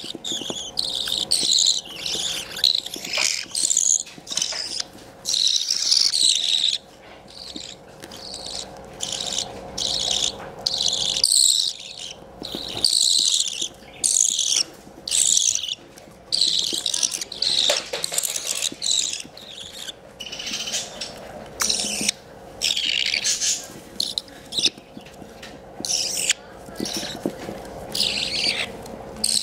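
Baby budgerigar chicks chirping in high, scratchy calls, in short bouts with brief pauses between them.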